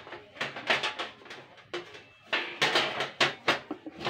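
Stainless steel parts of a Rinnai RI-603E three-burner gas stove clattering and knocking as they are handled and fitted into place: an irregular run of clicks and clanks, busiest in the second half.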